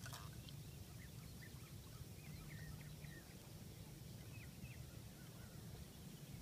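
Quiet outdoor ambience with a low steady hum and a few faint, short bird chirps scattered through.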